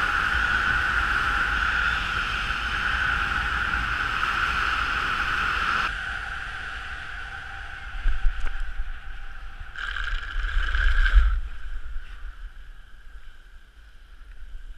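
Wind rushing over the camera during a fast speedriding descent under a speed wing. It drops off sharply about six seconds in, then comes back in a few uneven low rumbling gusts before fading.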